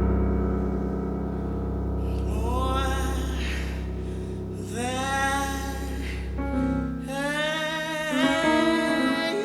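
Live worship ballad: a piano and double bass chord rings on and fades, while a solo voice sings three drawn-out phrases, the first starting about two seconds in.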